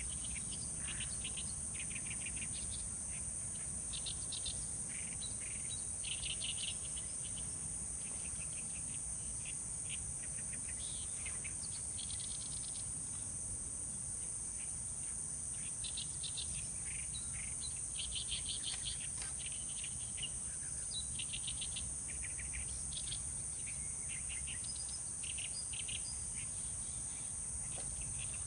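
A steady high-pitched insect trill with short, rapid chirping phrases coming and going, over a low background rumble.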